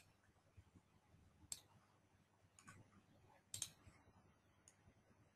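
Near silence broken by a few faint computer mouse clicks: one about a second and a half in, a fainter one a little later, and a quick double click near the middle.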